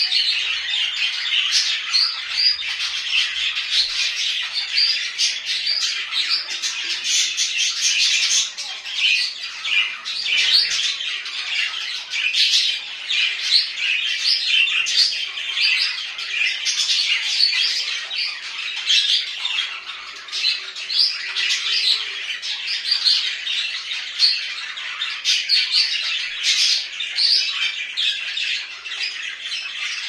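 A flock of budgerigars chattering together: a dense, unbroken stream of many short, high chirps and warbles overlapping one another.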